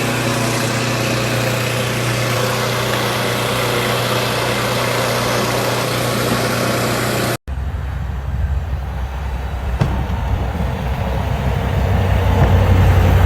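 Motor vehicle engine running steadily under an even hiss. After a break about seven seconds in, a deeper, rougher engine rumble grows louder toward the end.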